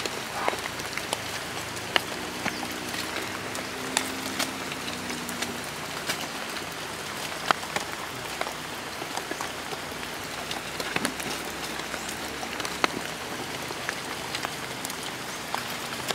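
Steady rain falling on jungle foliage, with scattered sharp drip ticks.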